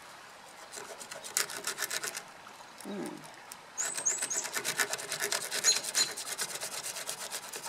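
A small jigsaw blade lashed into a split-stick handle sawing a piece of wood by hand, quick rasping strokes. A short spell of strokes comes about a second in, then a steady run from about four seconds on.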